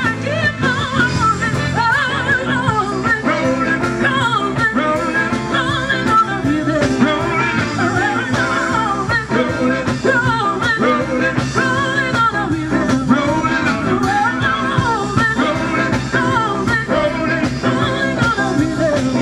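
Live band playing blues-rock with a singer over the instruments.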